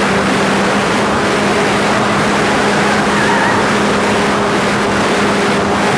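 RC PC-9 model plane's fuel-burning engine running steadily under power, heard from a camera on the airframe, with heavy wind rush from the plane's flight.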